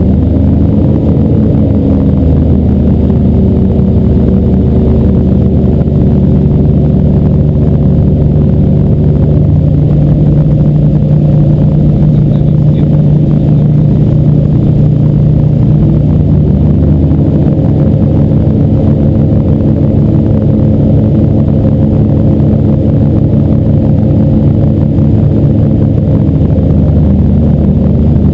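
Boat motor running steadily under way. Its note drops about a third of the way through and rises again about two-thirds of the way through.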